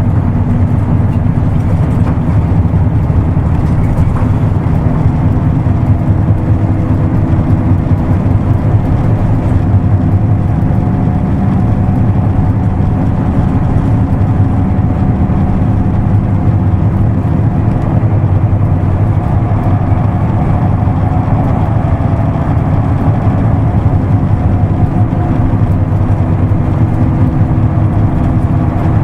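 Isuzu Erga Mio bus's diesel engine running steadily under way, with road noise. Heard from inside the bus, its low drone shifts slightly in pitch a few times.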